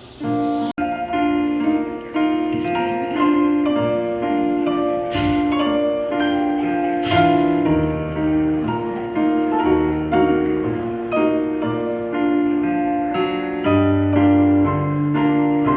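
Instrumental music on keyboard, with held chords over a bass line and no singing; it is cut briefly under a second in.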